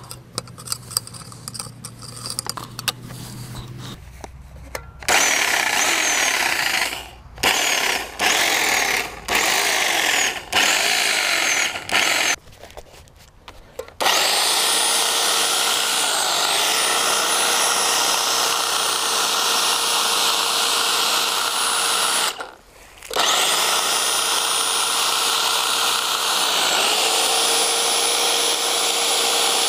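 Corded electric hedge trimmer, after a few seconds of light clicking: it runs in short on-off bursts, then steadily as the blades cut through the hedge. Its high motor whine dips briefly in pitch twice under load, and it cuts out once for a moment.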